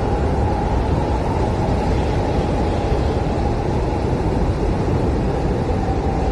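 Blizzard wind howling steadily: a deep, even rush with a faint whistling note held underneath.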